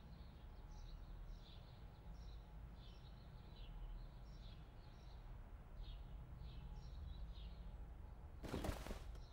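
Faint birdsong: small birds chirping in short, repeated calls over a low, steady room hum. Near the end comes a brief rustling burst.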